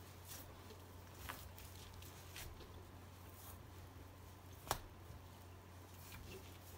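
Faint rustling and small ticks of coyote fur and hide being pulled and worked off a leg by gloved hands, with one sharper click about two-thirds of the way through. A steady low hum sits underneath.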